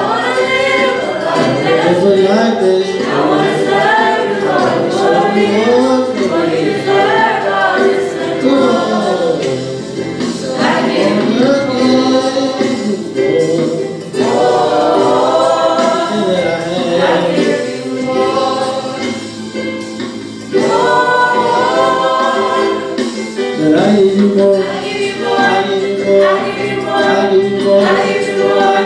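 A church praise team of men and women singing a gospel worship song together into microphones, several voices in harmony, with long held notes.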